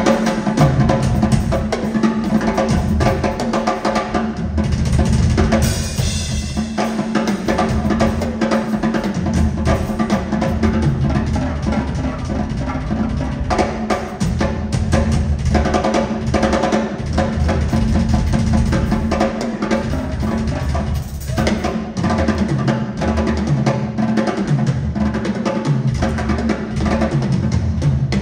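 Drum kit played live at full volume: fast, dense patterns of bass drum, snare and rolls, with cymbals over the top.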